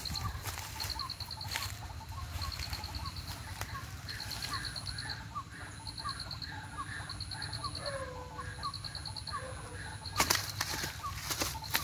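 Outdoor chorus of chirping: a high, rapid trill repeating about once a second over short rising chirps about three a second, with a thin high whine that comes and goes. About ten seconds in, a few loud rustles and knocks break in.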